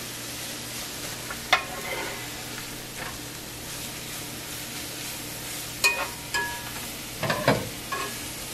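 Cauliflower rice and egg sizzling in a pot as they are stirred with a spatula: a steady frying hiss with the spatula knocking and scraping against the pot, once early and several times about six to eight seconds in.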